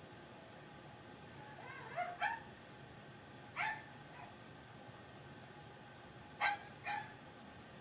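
A puppy giving short, high-pitched yips, about five in all, several in quick pairs, with gaps of a second or more between them.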